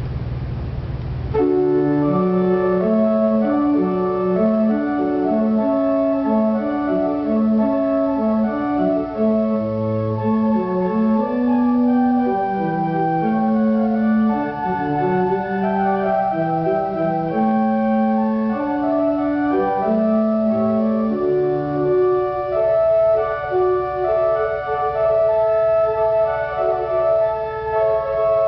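Church organ playing a lively piece, a moving melody over a bass line, starting about a second and a half in after a brief low rumble.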